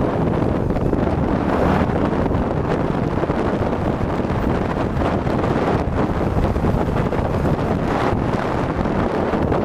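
Wind rushing over a helmet-mounted microphone while riding. Underneath it is the steady running of a Triumph Tiger 800 XCx's three-cylinder engine.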